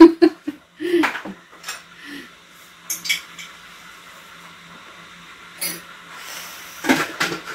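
Scattered light clinks and clicks of tableware being handled on a table, over a faint steady hum, with a louder rustle near the end.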